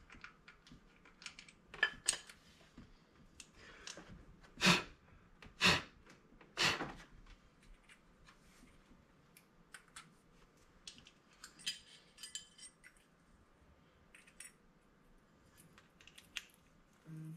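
Scattered metallic clicks and clinks of hand tools and parts being handled while a belt and crank pulley are fitted on an engine, with three louder knocks about a second apart some five seconds in.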